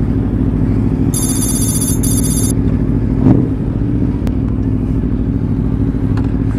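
Motorcycle engine idling steadily close to the microphone. About a second in, a high electronic warbling ring sounds for a second and a half, and a single short knock comes a little past halfway.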